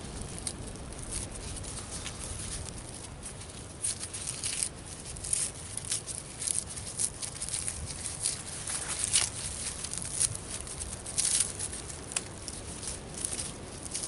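Dry tulip poplar bark being bent and peeled apart by hand, the inner bark tearing away from the outer bark in short, irregular crackles and rips.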